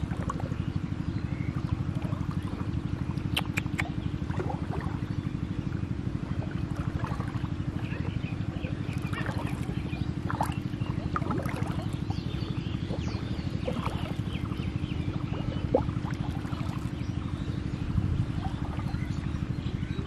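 A small engine running steadily with a fast, even pulse. Scattered short faint chirps and ticks sound above it.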